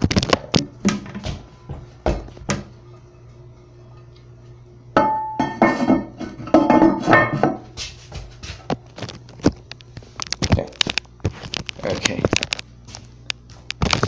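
Knocks and clinks of a ceramic Glacier Bay toilet tank lid being set back onto the tank, with a denser run of clinking and scraping about five seconds in, mixed with knocks from a handheld camera being moved about.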